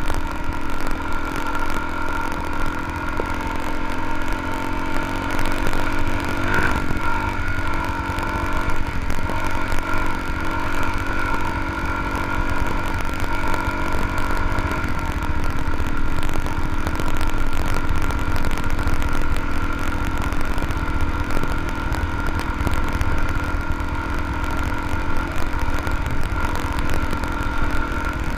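Dual-sport motorcycle engine running at a steady cruise on a rough dirt track, with wind rumble on the camera microphone. The engine note shifts briefly about six seconds in.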